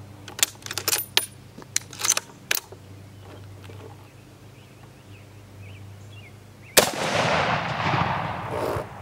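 A few sharp clicks and knocks as the rifle is handled in the first few seconds, then a single rifle shot about seven seconds in, its report echoing and fading away over about two seconds.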